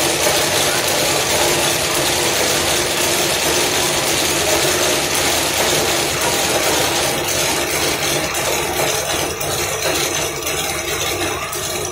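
High-speed braiding machine running, its spindle carriers clattering and rattling steadily as they travel around the track.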